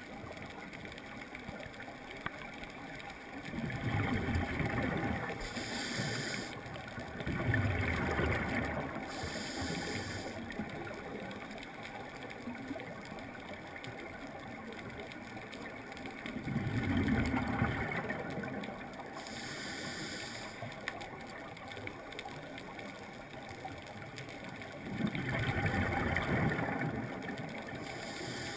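Scuba regulator breathing heard underwater: four slow breaths, each a loud low rumble of exhaled bubbles lasting about a second and a half, followed by a short high hiss of air drawn through the regulator. A steady faint underwater hum runs underneath.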